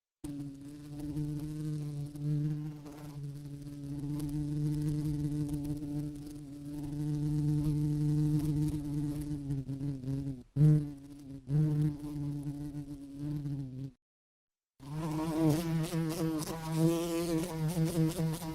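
Flying insect buzzing with a steady wing hum, broken briefly a little past halfway and cut out for about a second near the end, then returning with a wavering pitch.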